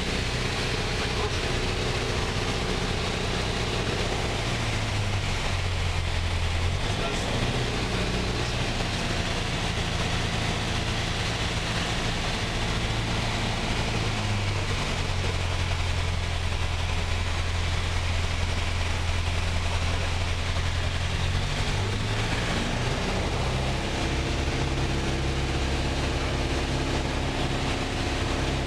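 Piper PA-28's piston engine and propeller droning inside the cabin, over a steady hiss of airflow. The engine note drops twice, about five seconds in and again about fifteen seconds in, and picks back up a couple of seconds and about seven seconds later: power being reduced and added again on the landing approach.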